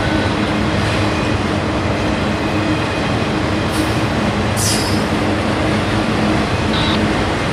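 Freight train of enclosed autorack cars rolling past close by: a steady rumble and rattle of wheels on rail. Two brief high screeches come near the middle.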